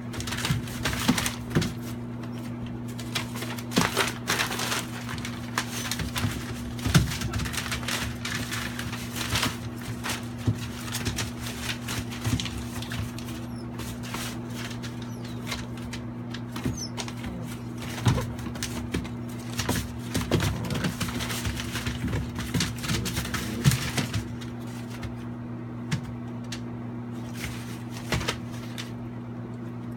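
Puppies scrambling and wrestling on newspaper-covered floor: irregular crinkling and rustling of paper and scratching of paws, over a steady low hum. The rustling thins out near the end.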